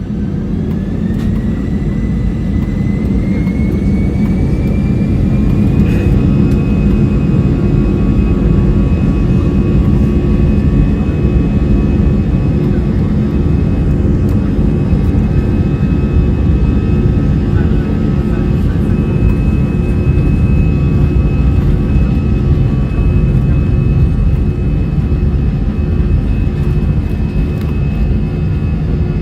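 Airbus A320's CFM56 jet engines spooling up to takeoff power, heard from inside the cabin: a whine rising in pitch over the first six seconds, then holding steady over a loud low rumble.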